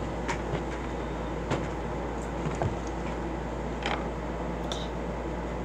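Steady low hum and hiss of room noise, with a few faint short clicks and taps.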